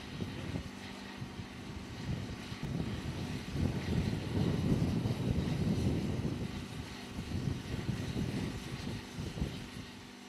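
Steady engine-like drone with a low rumble that swells in the middle and grows fainter near the end.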